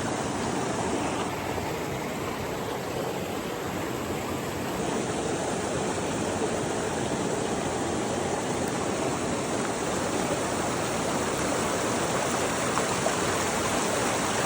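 Mountain creek flowing: a steady, even rush of water.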